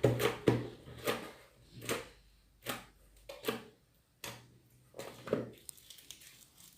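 Spoon scraping and knocking around the inside of a plastic pot, working the sticky leftover slime off its sides: a string of short scrapes and knocks about one every half second to second, stopping after about five seconds.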